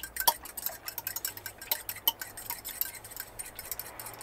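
A fork beating eggs in an enamel bowl: quick, irregular clinks of the metal tines against the bowl, several a second.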